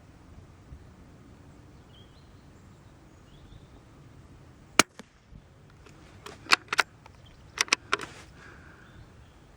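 A single .22 LR shot from a Brno (CZ) bolt-action rifle, a sharp crack about five seconds in. A second or so later comes a quick run of sharp metallic clicks as the bolt is worked to eject the case and chamber the next round.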